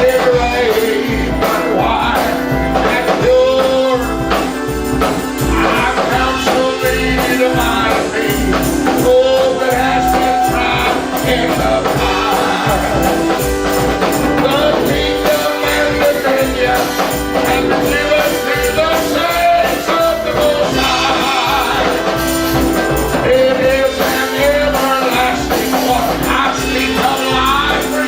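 Gospel music: singing over a band with a steady percussion beat.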